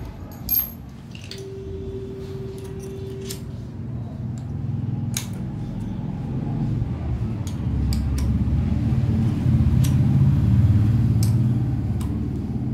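Small metal and plastic parts clinking and tapping against each other and a screwdriver as a soda-fountain valve is taken apart, with a sharp click about half a second in. A low rumble builds through the middle and is loudest near the end.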